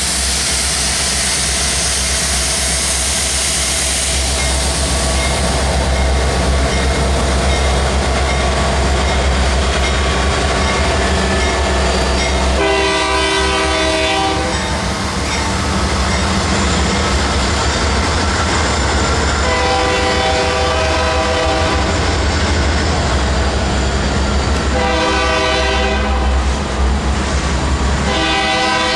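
Diesel freight train passing close by, its locomotives and then covered hopper cars rolling past with a loud, steady rumble and wheel clatter. In the second half a train horn blows four times, the third blast shorter than the others.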